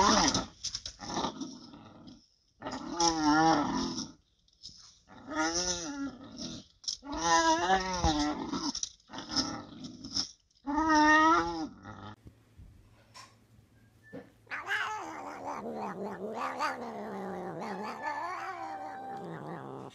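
A dog hanging by its teeth from a rope gives a run of wavering, whining growls about a second each. After a short pause a black cat yowls in one long growling call that rises and falls.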